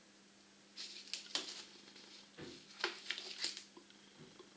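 Faint handling sounds from sliced bacon and its plastic packaging tray as the slices are peeled off and laid on bread. Short crinkles and clicks come in two clusters, about a second in and again around three seconds in.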